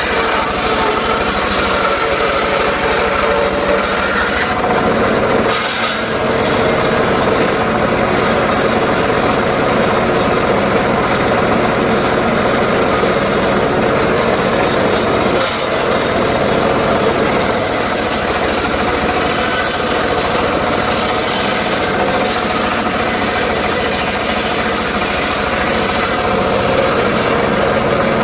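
Homemade circular saw running and cutting sengon wood, a loud steady whirring with brief dips about 6 and 15 seconds in.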